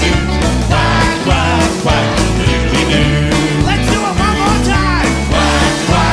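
A live rock band playing an upbeat instrumental section of a children's song, with a steady drum beat, bass and electric guitar.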